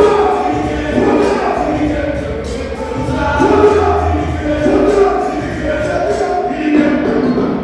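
Music with a group of voices singing together, choir-style, over light percussion.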